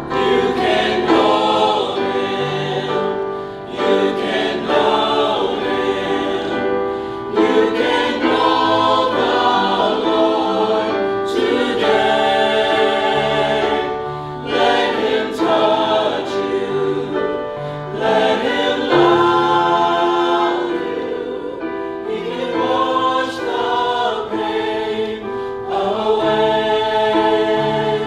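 Mixed-voice choir of men and women singing a gospel-style anthem in harmony, sustained notes moving every second or so with short breaths between phrases.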